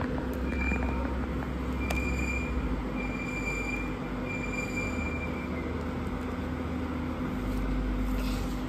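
Steady mechanical hum over a noisy background, with a faint high whine sounding in a few short stretches during the first half.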